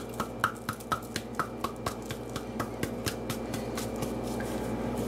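Seasoning shaker shaken over a raw steak: a quick run of light clicks, about four a second, that fades out after about three and a half seconds, over a steady low hum.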